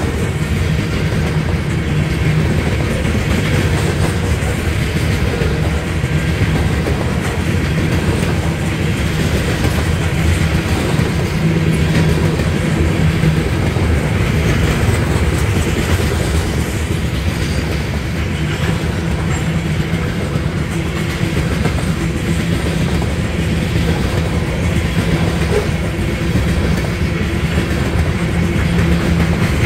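Covered hopper cars of a freight grain train rolling steadily past: a continuous rumble of steel wheels running on the rails.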